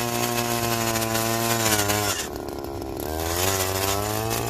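Small-engine ice auger running under load as its spiral bit bores through lake ice. About two seconds in the engine drops in speed for about a second, then revs back up and runs on.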